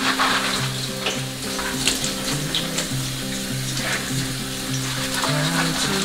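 Kitchen tap running, water splashing onto eggplants in a stainless steel mesh colander in the sink, with soft background music.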